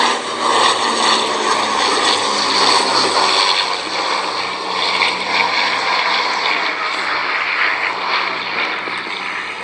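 Twin propeller engines of a de Havilland Dragon Rapide biplane airliner running steadily in flight, a continuous propeller drone.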